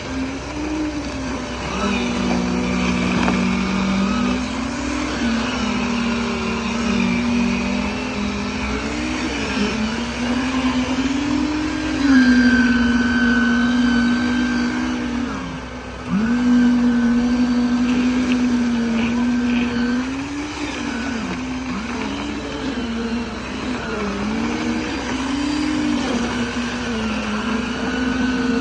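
A motor on concrete-pouring equipment running steadily, its pitch dipping and recovering every second or two as the load changes.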